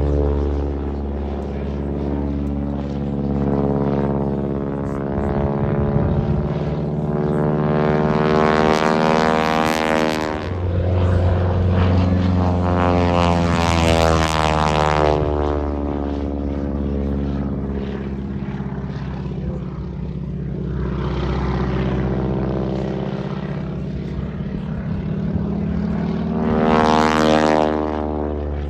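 Single-engine aerobatic biplane flying a display. Its engine and propeller note rises and falls in pitch through the manoeuvres, swelling into a loud propeller rasp three times: about a third of the way in, about halfway, and near the end.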